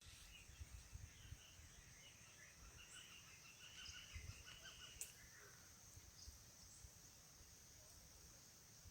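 Faint outdoor nature ambience: birds chirping in quick strings of short notes for the first five seconds or so, over a steady high-pitched insect drone. There are low thumps of wind or handling noise at the microphone.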